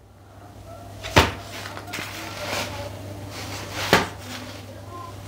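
Two sharp knocks of dishes being handled, about three seconds apart, over a steady low hum.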